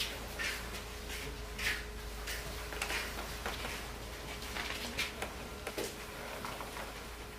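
Soft, irregular rustling and shuffling of layered silk court robes and feet as people walk in and kneel down, over a faint steady hum.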